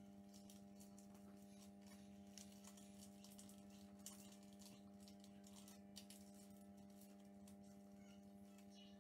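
Faint crinkling and crackling of thin paper being pleated and pinched by hand, over a steady low electrical hum.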